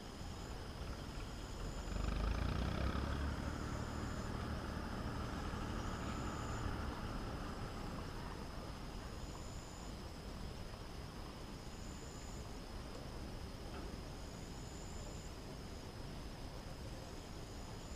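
A motor vehicle's engine hum swells about two seconds in and fades away over the next five seconds, over steady outdoor background noise. A short high chirp repeats every couple of seconds.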